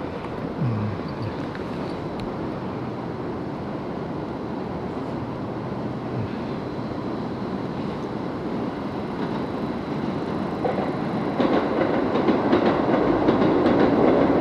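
A train passing on rails: a steady rumble that grows louder over the last few seconds, with the rhythmic clatter of wheels on the track.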